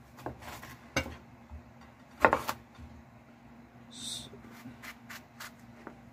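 Kitchen knife slicing an eggplant into rounds on a wooden cutting board: several sharp knocks of the blade against the board, the loudest a double knock a little after two seconds. Then a brief high hiss about four seconds in, followed by a few light clicks.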